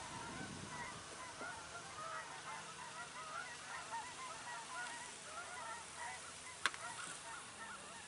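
Many birds calling at once: a dense chorus of short, overlapping calls, with a single sharp click about two-thirds of the way through.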